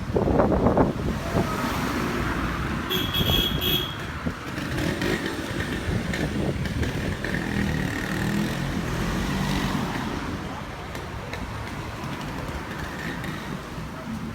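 Street traffic: motor vehicles running and passing close by, loudest in the first second, with a brief high-pitched beep about three seconds in.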